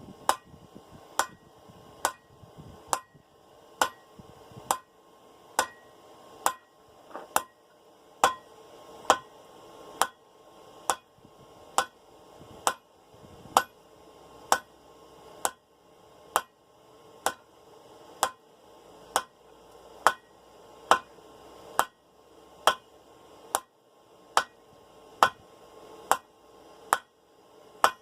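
Hand hammer striking hot 1/2-inch round steel bar on an anvil at a steady pace of about one blow a second, each blow with a short ringing note, as the bar is drawn out.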